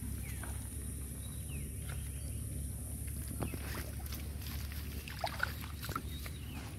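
Outdoor ambience: a steady low rumble of wind on the microphone, with scattered short bird chirps and a few soft ticks.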